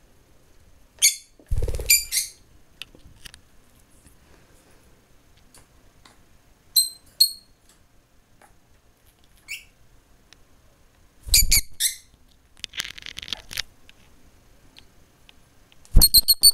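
Rosy-faced lovebird giving short, high-pitched chirps in small clusters several times, with a couple of dull thumps and a brief rustle.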